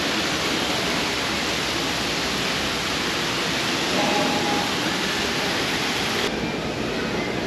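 Steady rushing of water from an indoor artificial waterfall pouring down a rock display; the hiss thins a little near the end.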